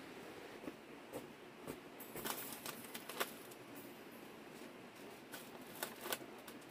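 Light scrapes and knocks of a hand tool working soil, a handful spaced irregularly.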